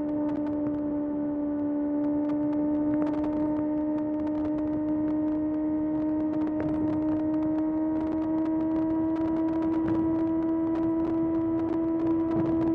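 Kawasaki ZX-6R's 636 cc inline-four engine running at a steady high rev on the move, its pitch creeping up slowly as the bike gathers speed under light throttle.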